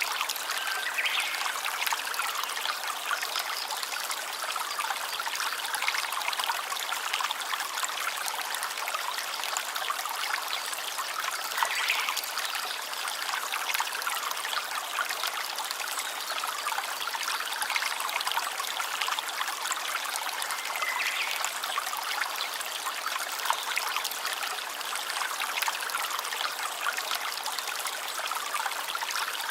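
Stream water trickling and babbling steadily over stones, with a few faint brief chirps now and then.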